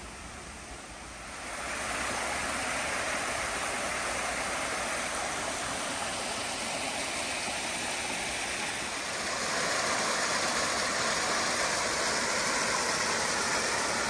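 Small woodland waterfall cascading over rock ledges, a steady rushing of water that grows louder in two steps, about a second and a half in and again near nine seconds.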